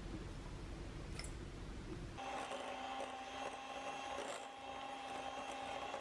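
Electric hand mixer running at a steady speed, its beaters creaming butter and sugar in a bowl; the motor's even hum starts abruptly about two seconds in.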